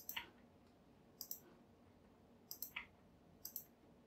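Faint clicking of a computer mouse and keyboard: four quick groups of short clicks, mostly in pairs.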